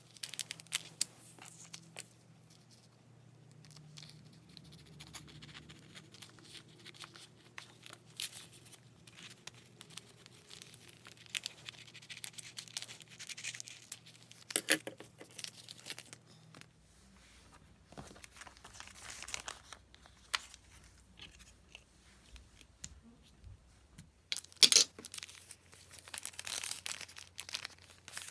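Packaging being handled: short bursts of crinkling, rustling and tearing with scattered clicks. The loudest bursts come near the end.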